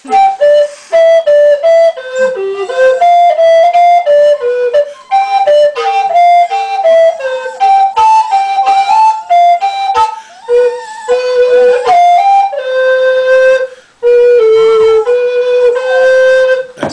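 A recorder plays a simple tune in clear, stepwise notes. A dog howls along in wavering glides at a few points, around the middle and again near the end.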